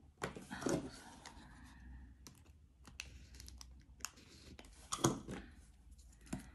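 Desk handling sounds: scattered light clicks and short scrapes as a pen and a correction-tape dispenser are picked up and run over planner paper, with louder rubs about half a second in and about five seconds in.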